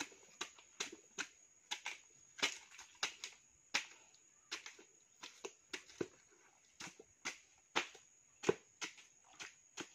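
Blade chopping and hacking into a cut plant stump: a long run of sharp, irregular strikes, about two or three a second. A faint steady high-pitched tone sits behind the strikes.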